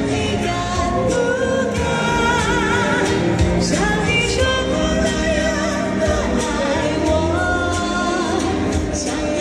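A woman singing a Chinese pop song into a handheld microphone over recorded backing music, her held notes wavering with vibrato.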